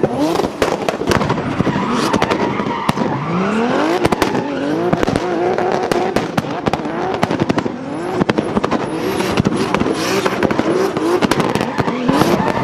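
Turbocharged drift car engine revving hard in repeated rising sweeps, with rapid cracks and bangs from its anti-lag system and tyres squealing.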